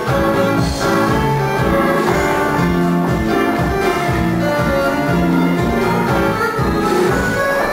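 Instrumental music with a steady low beat and held melody notes.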